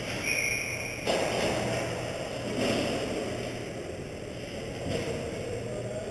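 Ice rink ambience during a hockey game: a steady low hum under a wash of distant play noise, with scrapes and knocks swelling about a second in, again near the middle and again near the end. A brief high whistle-like tone sounds about half a second in.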